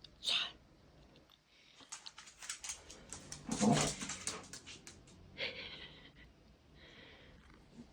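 A pet dog whining, with a run of quick short sounds around the middle and a brief high whine near the end.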